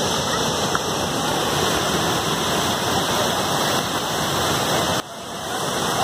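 Waterfall and stream water rushing over rocks in a steady, even roar. The sound drops suddenly about five seconds in and swells back up.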